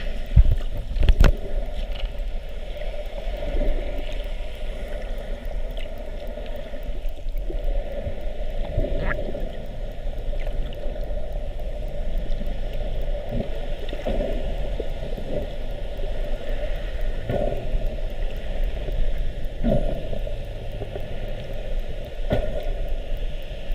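Muffled underwater sound picked up by a camera in a waterproof housing: a steady low rumble with gurgling water, broken by irregular knocks, two loud ones about a second in.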